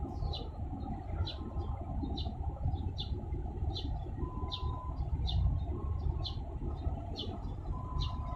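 A steady low rumble, with a bird repeating a short, falling chirp about every two-thirds of a second.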